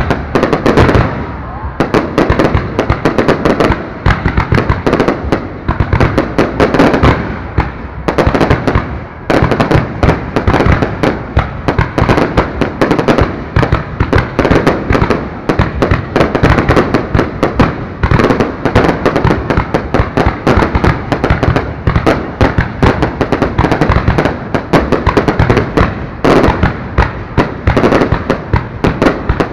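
A fireworks display firing a continuous barrage: many loud shell bursts and crackling reports a second, with no let-up.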